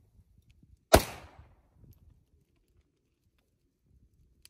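A single rifle shot about a second in, followed by a short echo that dies away.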